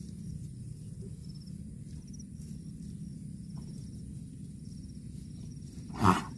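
Crickets chirping in short repeated trills over a steady low rumble. Near the end someone coughs once, loudly and briefly.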